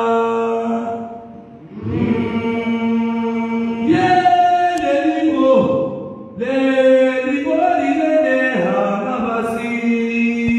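Group of voices chanting an igwadu, a Comorian traditional song, in unison on long held notes. The phrases break off briefly every two to four seconds before starting again.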